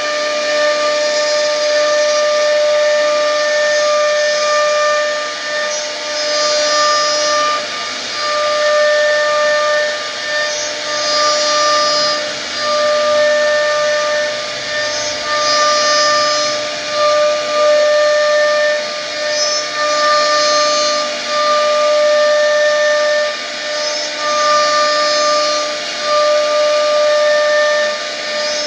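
CNC router spindle running with a steady high-pitched whine while its bit carves into a wood panel, with a hissing cutting noise that swells and eases every few seconds as the bit works through the wood.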